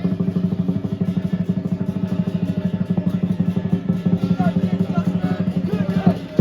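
Chinese lion dance percussion: drum, cymbals and gong playing a fast, even roll of about nine strokes a second, the cymbals and gong ringing on underneath.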